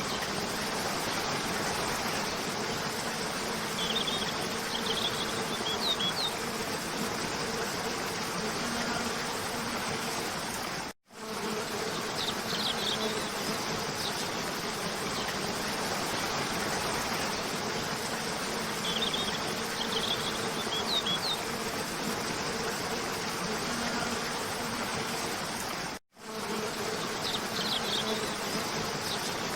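Steady rush of a cascading waterfall with a low buzzing hum, and short bursts of high bird chirps every few seconds. The sound cuts out for a split second twice, about fifteen seconds apart, where the recording loops.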